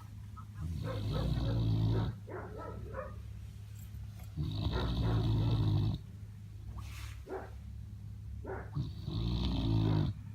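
A Central Asian Shepherd dog (Alabai) snoring in its sleep: three loud, rough, low snores, each about a second and a half long, roughly four seconds apart, with quieter breathing between.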